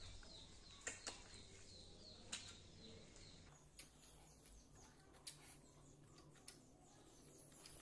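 Near silence with faint eating noises: a few soft clicks and chewing as food is picked up by hand from a metal plate and eaten.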